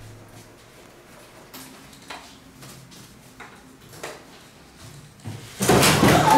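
Light knocks and clatter of paper cups on a serving tray as they are carried and set down on a wooden table. Near the end a much louder, noisy sound suddenly sets in.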